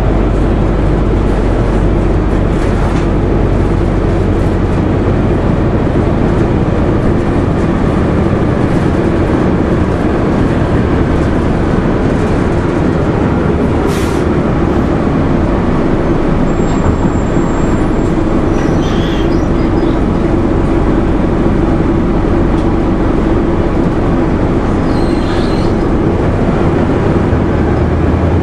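Interior noise of a 2001 Nova Bus RTS transit bus: its Detroit Diesel Series 50 four-cylinder diesel engine runs with a steady low drone, heard from inside the cabin. A single sharp click sounds about halfway through.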